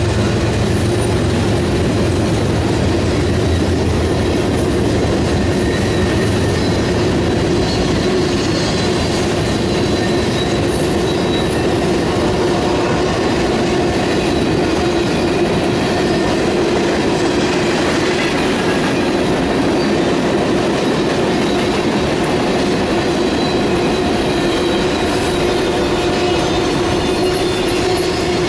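Cars of a mixed freight train rolling past on steel wheels: a steady, loud rumble of wheels on rail, with faint thin high squeals from the wheels.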